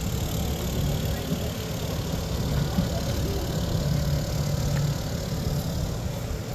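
Open-air market crowd ambience: a steady low rumble with people talking nearby.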